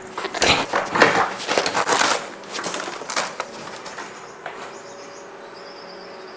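A food delivery bag rustling and crackling as it is handled, in a run of bursts over about three seconds, then dying down to a steady faint hum.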